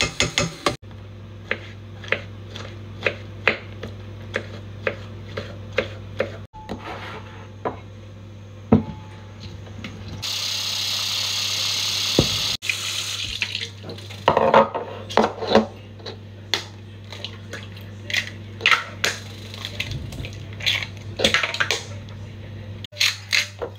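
Cooking sounds: a utensil knocks on a metal pan at a steady pace, then a kitchen tap runs into the pan for about two seconds in the middle, followed by scattered clattering knocks toward the end. A steady low hum runs underneath.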